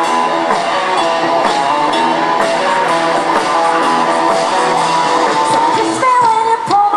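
Live band playing an amplified, guitar-led rock song.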